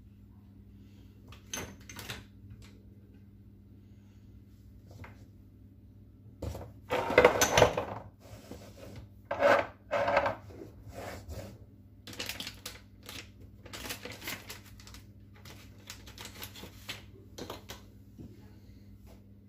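Kitchen things being handled: scattered light knocks and clicks, with a louder clatter about seven seconds in and another about nine and a half seconds in. A steady low hum runs underneath.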